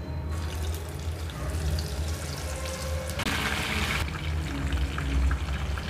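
Marinated paneer pieces sizzling and crackling as they deep-fry in hot oil in a kadai. The sizzle grows louder and denser a little past three seconds in, over a low steady hum.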